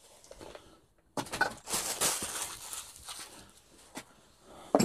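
Plastic bags and cardboard packaging rustling and crinkling as parts are handled and lifted out of a box, with a few light knocks.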